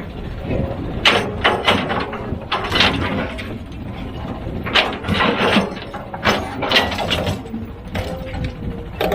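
Heavy machine engine running steadily, with repeated bouts of metallic clanking and rattling, as of heavy equipment working rock.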